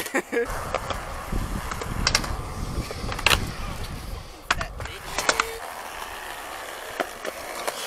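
Skateboard wheels rolling on concrete with a steady rumble for the first few seconds, broken by several sharp clacks of the board hitting the ground.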